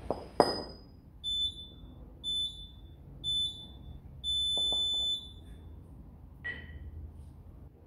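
Digital gym interval timer beeping a start countdown: three short high beeps about a second apart, then one longer beep that starts the timed set. A sharp clank comes about half a second in as the kettlebells are picked up.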